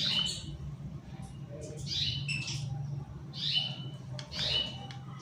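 A chicken with a respiratory infection gives four short chirping calls about a second apart, over a steady low hum.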